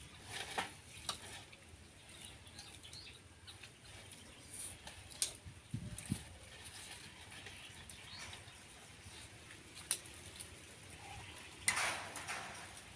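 Close eating sounds of a person working through grilled shellfish: scattered small clicks of shells and a utensil against a plate, with sucking and chewing. The loudest noise comes near the end.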